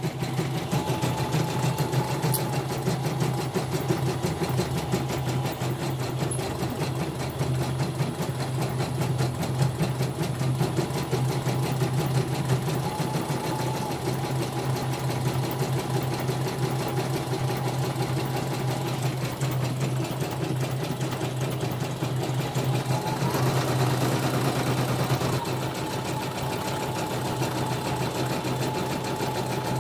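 Elnoss portable computerized embroidery machine stitching a design, its needle hammering in a fast, even rhythm over a steady motor hum. About three quarters of the way through, the pitch briefly swells up and back down.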